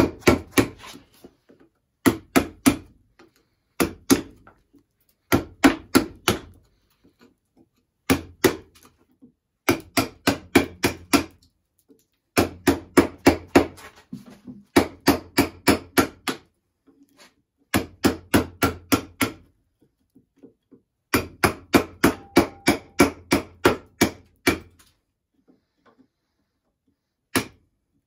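A bench chisel struck with a mallet, chopping out a hollow in a wooden block: quick runs of sharp knocks, about four or five a second, broken by short pauses, with a longer pause near the end.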